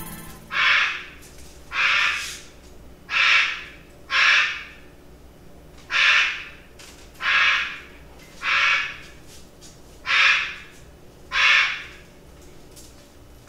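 A bird giving harsh squawking calls, about ten of them, a little over a second apart.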